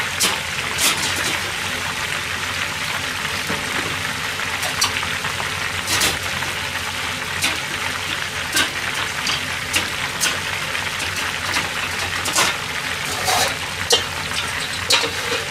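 Battered food deep-frying in a frying pan of oil: a steady bubbling sizzle with sharp crackles and pops scattered through it.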